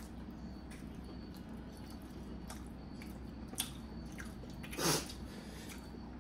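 People chewing and eating momos: faint wet mouth sounds and small clicks over a steady low room hum, with one short, louder burst of noise about five seconds in.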